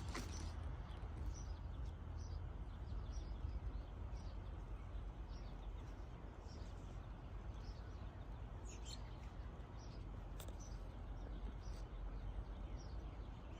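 Small bird chirping over and over, short high chirps about one or two a second, over a steady low rumble.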